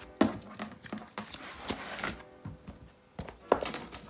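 Ring binders being handled: plastic photocard sleeves rustling and the binders knocking down on a desk, sharpest about a quarter second in and again about three and a half seconds in.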